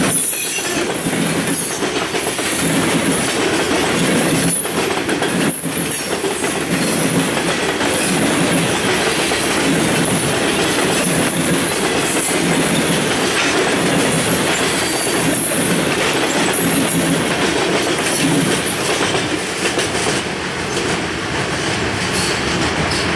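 Freight train cars rolling steadily past, the wheels clacking over rail joints, with a high squeal of wheels on rail at times.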